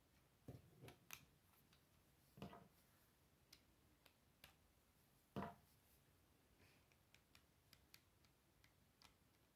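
Faint clicks and soft knocks of plastic Lego pieces being handled and pressed together as wheels are pushed onto axle pins, scattered irregularly, with the loudest knock a little past the middle.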